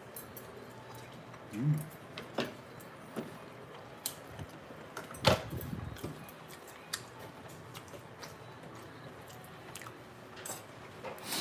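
A person eating at a table: chewing, with scattered light clicks and knocks of tableware. The loudest knock comes about five seconds in.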